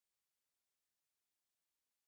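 Silence: the sound track is muted or empty.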